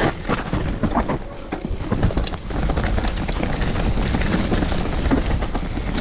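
Mountain bike descending a rough trail: a steady rush of wind on the action camera's microphone with the clatter and knocks of the bike and tyres over roots and rocks.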